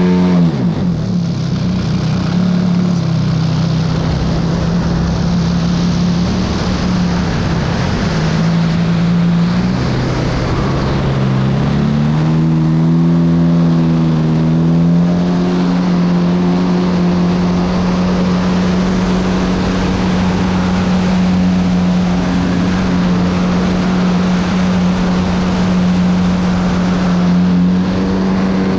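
A radio-controlled model airplane's motor and propeller heard from a camera mounted on the plane in flight: a steady droning tone over a rush of wind, with the throttle easing off about ten seconds in and coming back up a couple of seconds later, then holding steady.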